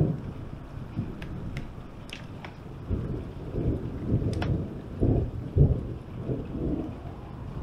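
Thunder rumbling quietly, rolling in several low swells, the strongest a little past halfway. A few sharp ticks fall over it.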